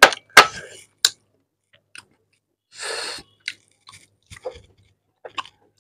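Close-miked eating sounds of a person chewing chicken curry and rice eaten by hand. A few sharp wet smacks come in the first second and a short breathy hiss about three seconds in, then quieter chewing and lip smacks.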